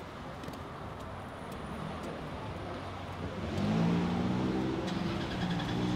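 City street traffic noise from passing cars. About three and a half seconds in, a louder vehicle engine swells and passes.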